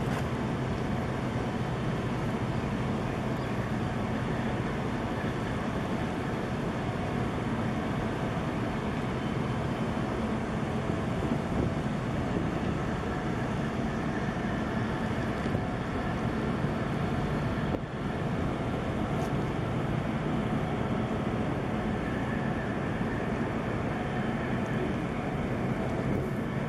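Steady low drone of a ship's engine, with a constant rush of wind and water.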